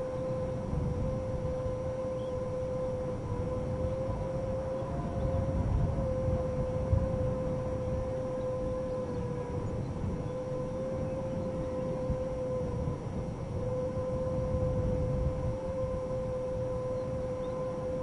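Wind howling through an electric transformer box: one steady whistling tone that wavers slightly in pitch, with a fainter tone an octave above, over low gusting wind noise.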